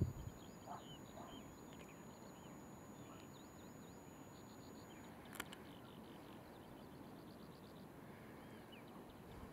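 Faint outdoor ambience: scattered small bird chirps and a quick trill of repeated notes over a steady hiss, with one sharp click about five seconds in. A faint high steady whine stops about halfway through.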